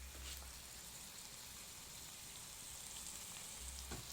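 Tomato, onion and garlic frying in oil in a pan: a low, steady sizzling hiss, with a couple of light ticks near the end.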